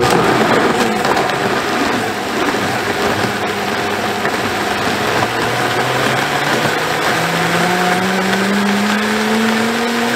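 Countertop blender running at full power, churning a thick smoothie of oats, fruit, seeds and water into a smooth drink. It starts sharply, and its motor pitch climbs steadily through the second half as it spins faster.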